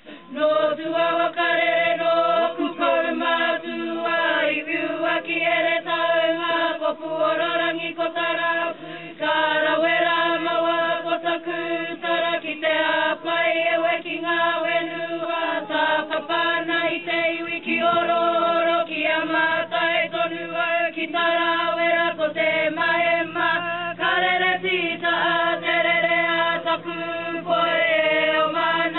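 A group of people singing together in a chant-like style, a slow hymn or waiata with long held notes and brief breaks between phrases.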